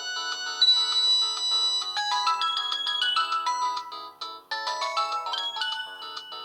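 Samsung GT-E1230 mobile phone playing a polyphonic ringtone through its speaker: a quick melody of short notes with several parts sounding at once. The tune breaks off briefly about four seconds in, then starts again.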